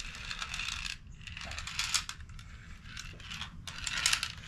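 Spent shotgun shell primers, small metal cups, rattling and clinking together as they are emptied out, a dense jingle of tiny clicks with louder clinks about two seconds in and about four seconds in.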